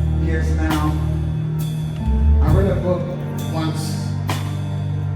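Live gospel worship music: held low bass notes under a band, with cymbal crashes about once a second and a voice singing over it.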